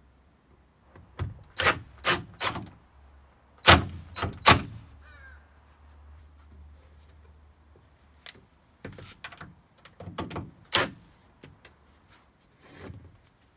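Sharp plastic-and-wood knocks and clunks as a plastic cone is pressed and shifted against a wooden post while being fastened to it, in several clusters, the loudest pair a little after the middle.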